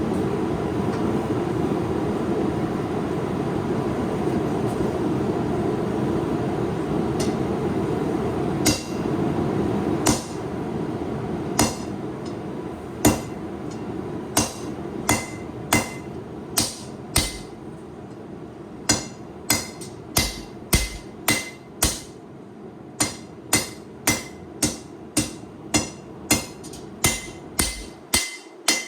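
A steady rushing roar gives way to hand-hammer blows forging a hot high-carbon steel knife blank on an anvil, hammering in the finger well. The blows come sparsely at first, then settle into a steady run of about two a second, each with a short metallic ring.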